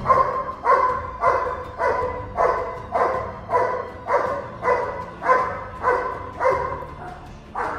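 A Doberman barking in a steady, repeated rhythm, about thirteen loud barks, roughly one every half second or so.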